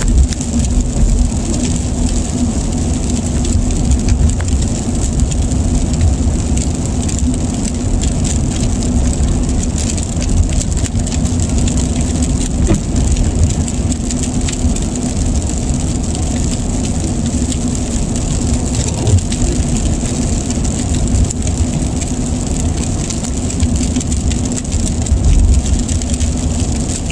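Steady road noise inside a moving car's cabin: a low tyre and engine rumble, with rain hitting the windshield in many small ticks.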